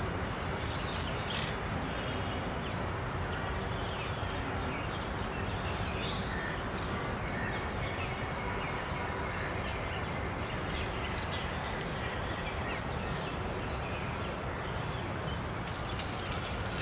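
Steady outdoor ambient hiss with scattered short, high bird chirps and a few sharp ticks through it.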